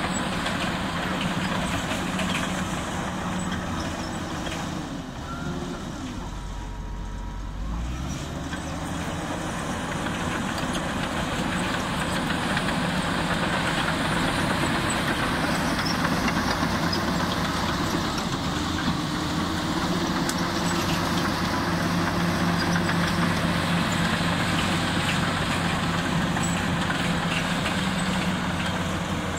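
Komatsu D85E-SS crawler bulldozer's diesel engine running steadily under load as the dozer pushes earth with its blade. The engine eases off about six seconds in, then picks up again two seconds later.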